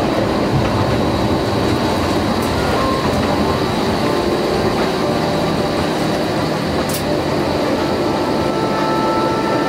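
Steady cabin noise inside an Airbus A320-200 rolling along the runway after landing: the rumble of the engines and the landing gear, with no sudden changes.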